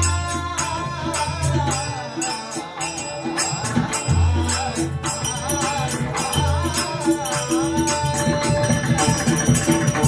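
Dabalbari bhajan group performing a taal dindi gajar: taal hand cymbals clashing in a steady rhythm under a sung devotional chant, with strong held low notes beneath.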